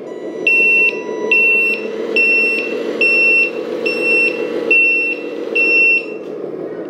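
LESU 1/14 MAN TGS RC dump truck's sound module sounding its reversing warning: seven even, high beeps a little faster than one a second, the sign that the truck is backing up. Under them runs the module's steady imitation diesel engine sound.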